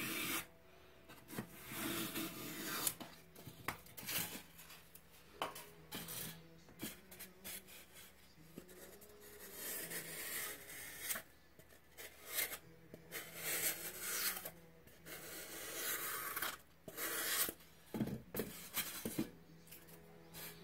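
Snap-off utility knife blade slicing and scraping through a pink foam block, in a series of uneven rasping strokes with a few sharp clicks.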